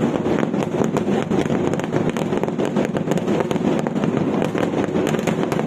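Fireworks display: a dense, continuous barrage of firecracker bangs and crackles going off in rapid succession with no pause.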